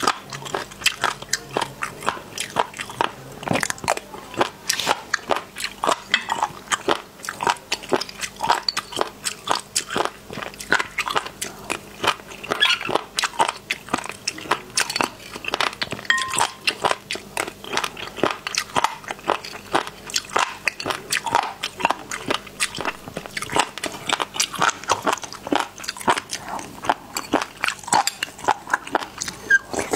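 Close-miked crunchy chewing and biting of marinated razor clam pieces: rapid, sharp crunches several times a second, with no pause.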